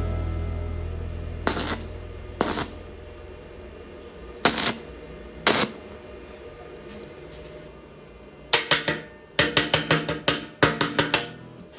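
Four separate sharp knocks, then a quick run of about a dozen taps near the end, over a low hum that fades away in the first few seconds.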